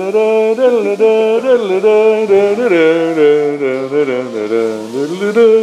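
A voice chanting in long held notes that slide up and down in pitch, with few breaks.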